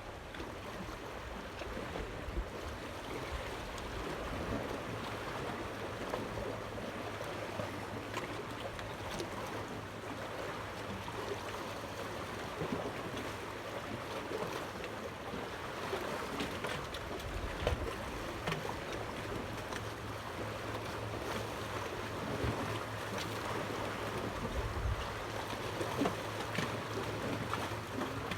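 Steady water noise, like small waves lapping, with a faint low hum beneath and a few light clicks and knocks.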